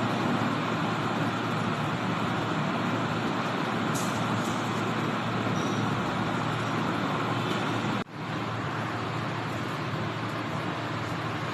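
Steady rushing background noise with no clear pattern, dropping out abruptly for a moment about eight seconds in.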